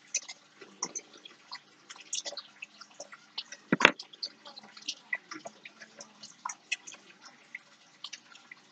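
Irregular small clicks and ticks of fingers handling a paper clip and wrapping thread around it close to the microphone, with one louder click about four seconds in.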